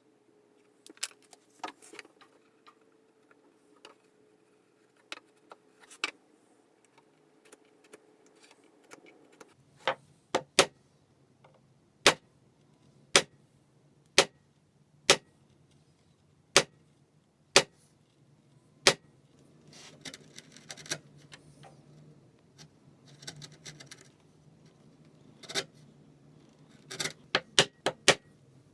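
A series of sharp knocks, about one a second for several seconds, with a couple of short scraping noises and a quick run of knocks near the end: workshop handwork on wood.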